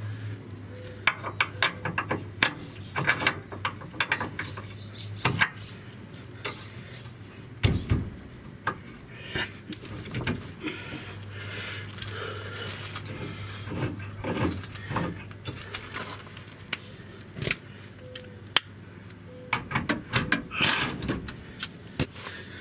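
Scattered metal clinks and taps as a bolt, washer and nut are handled and fitted by hand at a pickup's rear leaf-spring hanger, over a low steady hum.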